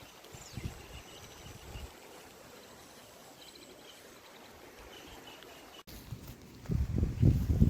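Outdoor nature ambience: faint, repeated insect chirping over a steady hiss, with low rumbling buffets of wind on the microphone near the end.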